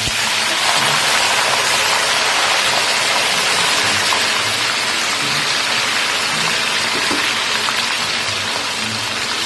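Tofu cubes deep-frying in hot oil in a wok, a loud steady sizzle as they are slid in from a colander; water still clinging to the cut tofu makes the oil sizzle and spatter.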